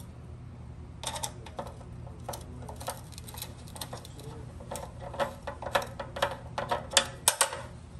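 Light metallic clicks and taps of screws and a small metal part being worked by hand against the sheet-metal back of a gas range, as the screws are started into holes that don't line up. The clicks are scattered at first and come quickly in a dense run about five seconds in.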